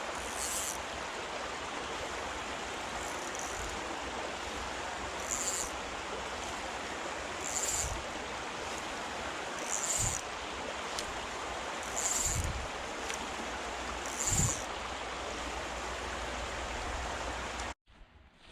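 Creek water running steadily. A short high hiss repeats about every two seconds, several of them with a low thump. The sound cuts off abruptly near the end.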